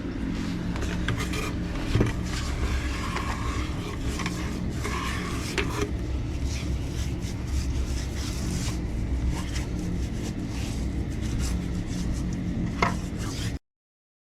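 Scraping and clinking of a hand tool working waterproofing compound against its container and the wall, over a steady low hum. Cuts off abruptly near the end.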